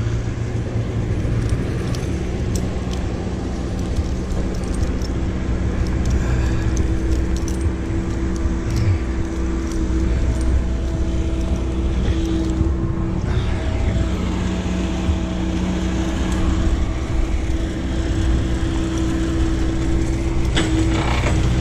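A vehicle or machine engine running steadily at a constant speed, with a few light clicks and clinks over it.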